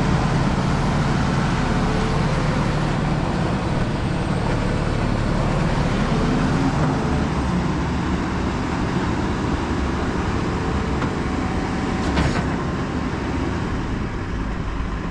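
Engine of the machine pulling the shanked rock-combing tool, running steadily, with a single sharp knock about twelve seconds in.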